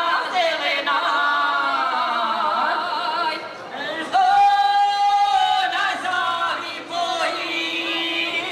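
Women's voices singing a traditional folk song unaccompanied, in a small group through microphones. A loud note is held for about two seconds in the middle.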